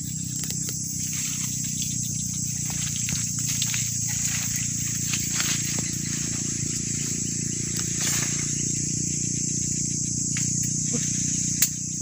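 Steady high-pitched insect chirring, with a low steady hum underneath and scattered leaf rustling as the branches are pushed through; one sharp click near the end.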